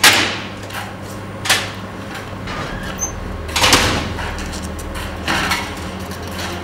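A steady low hum with four loud hits spaced about one and a half to two seconds apart, each dying away; the first hit is the loudest.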